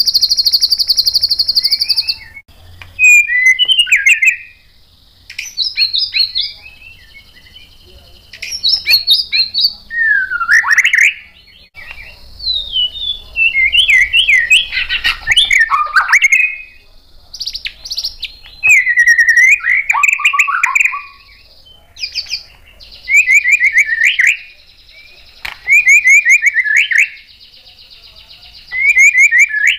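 White-rumped shama (murai batu) singing loudly in a long run of varied phrases, each a second or a few seconds long, with short pauses between. Some phrases are fast trills and rapid warbles, and late on a high, steady buzzing trill runs beneath them.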